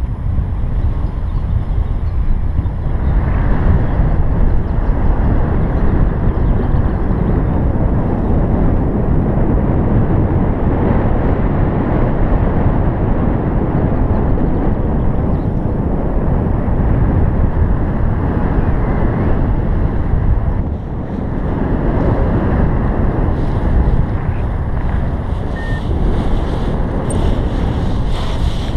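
Airflow buffeting a paraglider pilot's point-of-view camera microphone in flight: a loud, steady, low wind rumble. It dips briefly about two-thirds of the way in, as the glider comes in low to land.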